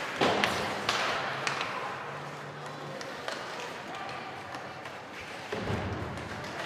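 Ice hockey play in an arena: sharp knocks of sticks, puck and bodies in the first second and a half, over a background of voices from the stands and benches.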